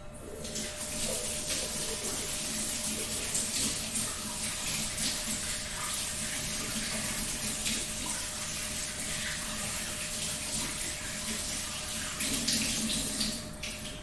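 Kitchen tap running while hands are washed under it, a steady rush of water that is turned off shortly before the end.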